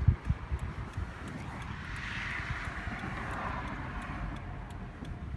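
Traffic noise heard from inside a car that has just come to a stop: a steady low rumble, with a vehicle's noise swelling about two seconds in and fading away again. No squeak can be heard.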